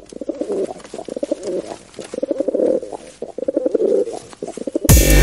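Pigeons cooing in a series of rolling bouts about a second apart. Loud electronic music with heavy bass cuts in at the very end.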